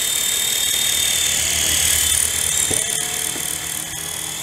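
Toy remote-control helicopter's small electric motors and rotors whirring, with a steady high whine.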